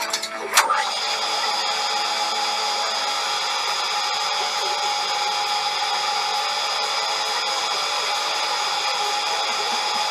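Manual engine lathe running steadily with a constant whine, machining a metal flange, with two sharp clicks right at the start.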